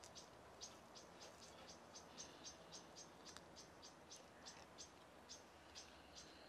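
Near silence with a cricket chirping faintly: short high chirps repeating about three to four times a second.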